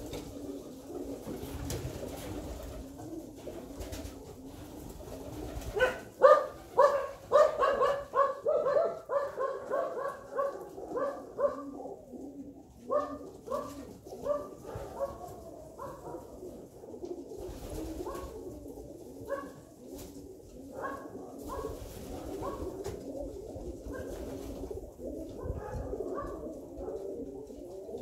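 A flock of Alföldi-Körösi tumbler pigeons cooing together in a steady low murmur. From about six seconds in, louder coos close by come in quick runs of several a second for about ten seconds. A few more loud coos break through later.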